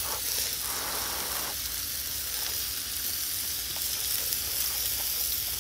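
Pork belly sizzling in its rendered fat on a round griddle pan: a steady crackling hiss with a few faint ticks.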